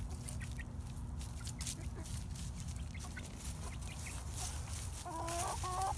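Young Orpington chickens foraging, with scattered faint scratching ticks, and one bird gives two short level-pitched calls near the end.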